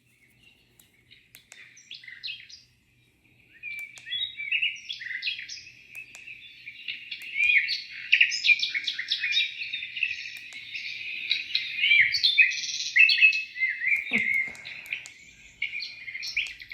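Recorded birdsong played back through a small portable Bluetooth speaker (DUDGSIS X2) as a sound test: sparse chirps at first, then a busy run of chirps and trills from about four seconds in. A brief low knock comes about fourteen seconds in.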